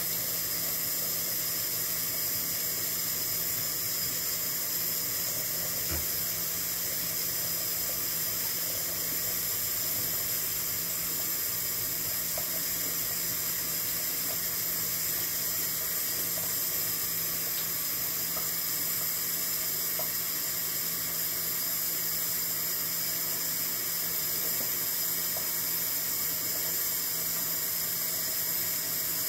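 Kitchen faucet running steadily into a stainless steel sink, the stream splashing over raw poultry being rinsed and turned by hand.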